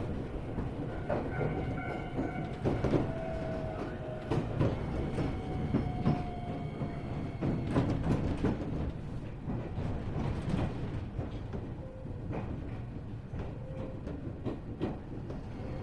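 Iyotetsu 3000 series electric train heard from inside the car as it slows into a station: a steady running rumble with scattered clanks and knocks from the wheels and track, and a thin whine that falls slowly in pitch over the first half as the train brakes.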